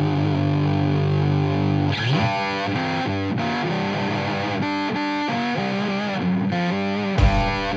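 Intro music: a distorted electric guitar holds a chord for about two seconds, then plays a run of quick picked notes, with drums coming in near the end.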